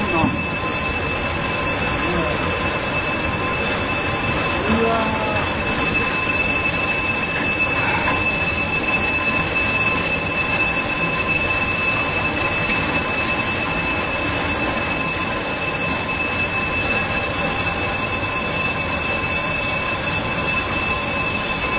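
Steady loud rushing and grinding of a tsunami surge shoving a mass of wrecked houses and debris, with a continuous high-pitched squeal over it.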